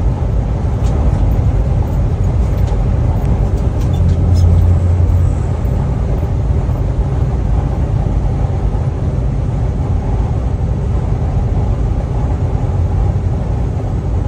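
Steady low drone of a semi-truck's engine and tyres heard inside the cab at highway speed, swelling briefly about four seconds in.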